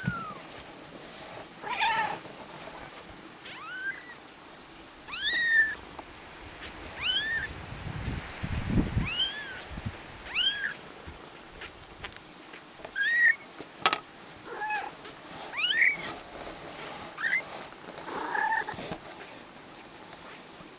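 A very young kitten mewing over and over, thin high-pitched mews that rise and fall in pitch, about one every second or two. A single sharp tap comes about two-thirds of the way through.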